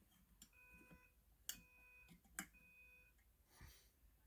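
Fire alarm horn sounding faintly in the temporal-3 evacuation pattern: three half-second tones about a second apart. The alarm was set off by key-activating a pull station.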